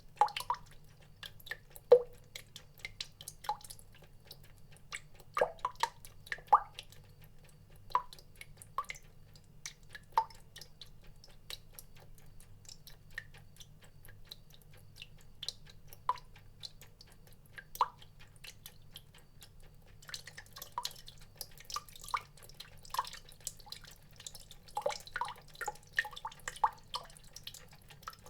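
Water drops falling one at a time at an irregular pace, each a short, sharp plink. The drops come faster and thicker about two-thirds of the way through.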